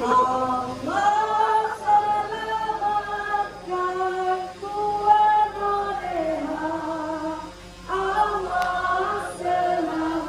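A group of voices singing a slow song together, holding each note for about a second as the tune steps up and down.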